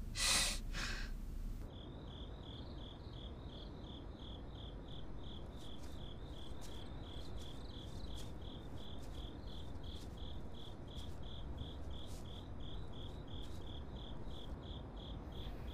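Crickets chirping in an even, steady pulse of about three chirps a second over a low background hum, starting after a brief noise in the first second.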